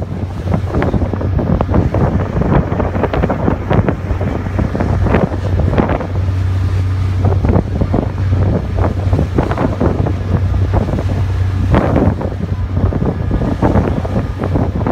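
Wind buffeting the microphone on the open deck of a moving ferry, in irregular gusts, over the steady low drone of the ferry's engines.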